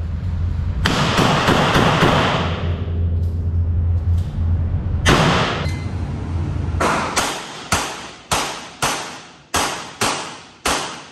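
A revolver firing a quick string of about eight shots, roughly two a second, each shot ringing briefly off the walls of an indoor range. Before the shots, a loud steady noise with a low hum.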